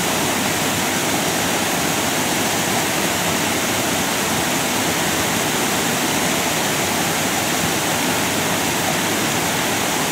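River water pouring over a stone weir and churning into white water below: a steady, unbroken rush.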